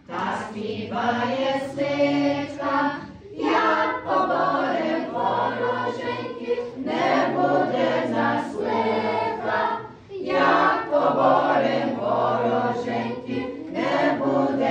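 A choir singing a Ukrainian song in long sung phrases, with short breaths between phrases about three and a half and ten seconds in.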